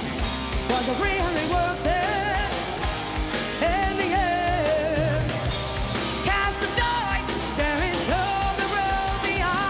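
A live heavy metal band playing, with a woman singing lead in phrases of held, wavering notes over bass guitar and drums.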